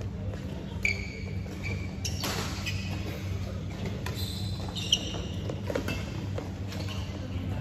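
Badminton shoes squeaking in short chirps on the court mat during a rally, with a sharp racket hit on the shuttlecock about five seconds in, over the steady low hum of a large sports hall.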